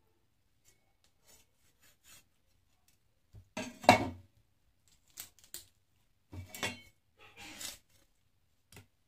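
Meat cleaver knocking on a plastic cutting board while a whole raw chicken is cut apart: a few scattered sharp knocks, the loudest about four seconds in, and a brief scraping noise shortly after the middle.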